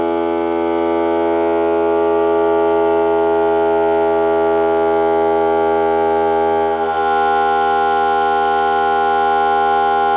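Ryobi 18V cordless 1-gallon air compressor (P739) running steadily as it pumps its tank up from empty, a loud, even droning whine over a low hum; about two-thirds of the way through the tone shifts abruptly and a higher note comes in.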